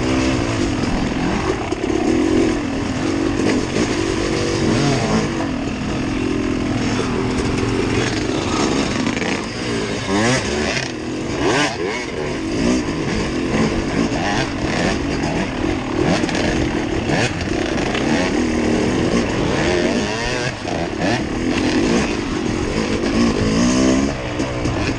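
Off-road vehicle engine running under varying throttle, its pitch repeatedly rising and falling, over a constant rushing noise.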